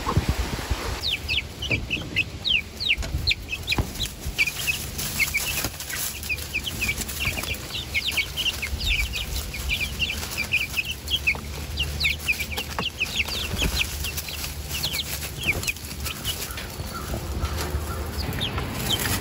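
A brood of young chicks peeping nonstop: many short, high-pitched peeps, each falling in pitch, starting about a second in, over a low rumble.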